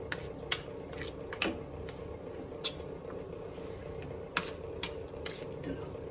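Scattered, irregular light clicks and taps of kitchen utensils, about ten in all, over a steady hum.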